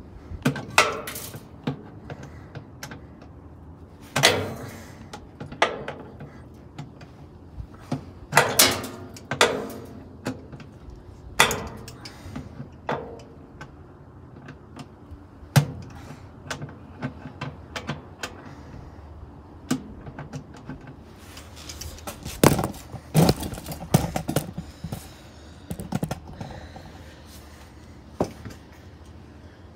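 Irregular metal clanks, knocks and rattles, with scraping in between, as parts of an old Whirlpool belt-drive washer's cabinet and mechanism are worked on with hands and tools during dismantling. Clothing rubs close to the microphone.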